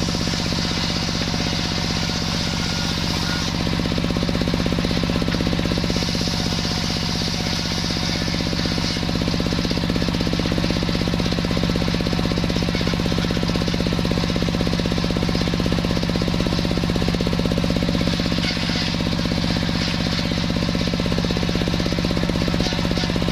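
Sawmill running: a steady machine drone with a fast, even pulsing beat, and a higher hiss that swells and eases as the saw cuts through a waru (sea hibiscus) log.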